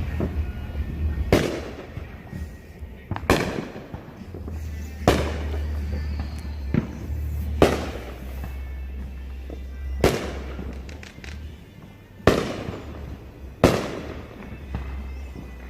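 Neighbourhood fireworks going off: seven sharp bangs at uneven intervals of about two seconds, each dying away briefly.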